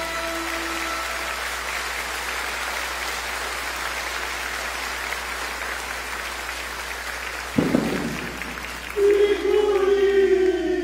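Theatre audience applauding as the last held notes of the music die away. Near the end a loud pitched sound comes in over the clapping, its pitch sliding downward.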